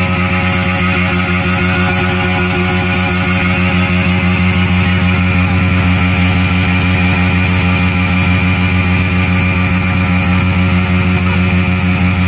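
Yamaha R15M's 155 cc single-cylinder engine held at full throttle at one steady high pitch during a burnout, the rear tyre spinning in place against the held front brake.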